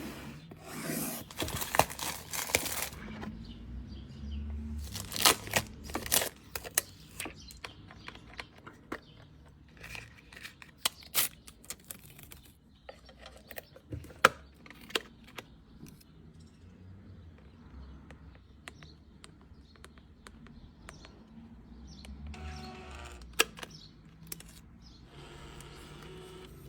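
Unboxing and handling of a MakeID E1 label maker: packaging rustling and tearing at the start, then scattered sharp clicks and knocks of plastic parts and keys. Near the end come two short stretches of steady whirring.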